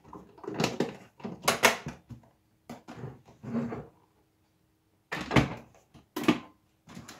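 Hard plastic clunks and clicks of a Ninja Auto-iQ blender: the lid being pressed and latched onto the loaded pitcher, then the pitcher set down and locked onto the motor base, ending in two sharp clicks about a second apart.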